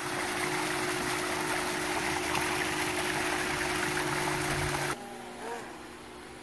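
Water from a backyard pool's rock waterfall splashing into the pool, a steady rushing with a faint hum under it. About five seconds in it cuts off suddenly, leaving a much quieter steady hum.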